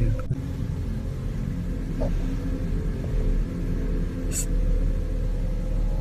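Low, steady rumbling drone with faint held tones above it, and a brief high hiss about four seconds in.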